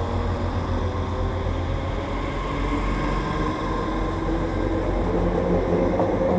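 SNCF Z 6400 electric multiple unit pulling away from the station. Its traction motors whine in several tones that slowly rise in pitch as it gathers speed, over a steady low rumble of the wheels on the rails.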